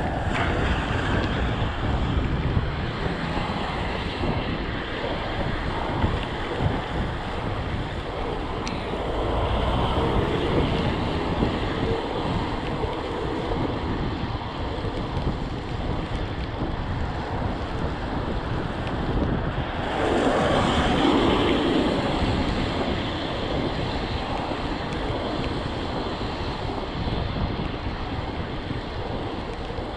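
Wind rushing over the microphone of a moving bicycle, mixed with the hiss of tyres on a wet road, with louder swells about ten and about twenty seconds in.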